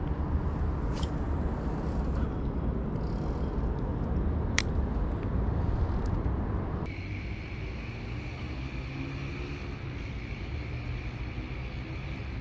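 Steady low outdoor background rumble with two sharp clicks, the second near the middle. About seven seconds in the background changes abruptly to a quieter, steadier noise with a faint high whine.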